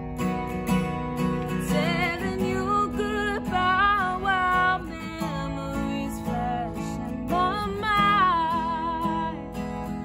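Takamine steel-string acoustic guitar strummed with a capo, with a woman singing a pop melody over it. The voice comes in for two phrases, about two seconds in and again past seven seconds, while the strumming runs on underneath.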